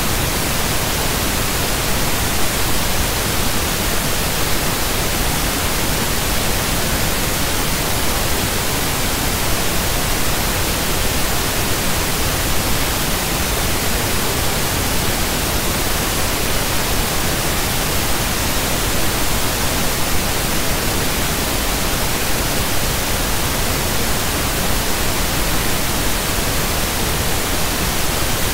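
Loud, steady static hiss, spread evenly from low to high pitch, unchanging throughout.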